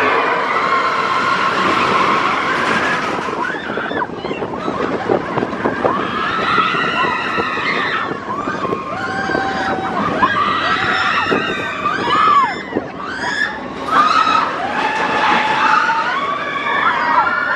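Riders on the Expedition Everest roller coaster screaming and shrieking in rising and falling pitches over the steady rush and rumble of the moving coaster train.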